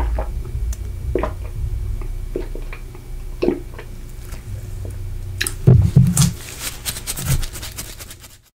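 Close-miked swallowing as a drink is gulped from a glass, a wet gulp about once a second, with a louder cluster of wet mouth sounds about six seconds in. The sound cuts off abruptly near the end.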